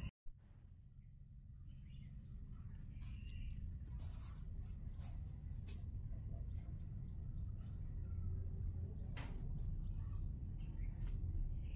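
Outdoor background: a steady low rumble with a few faint bird chirps and a thin, high tone that pulses on and off repeatedly.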